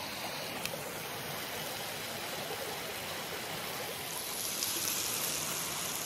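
A brook running steadily, an even rushing of water; about four seconds in the sound gets a little louder and hissier.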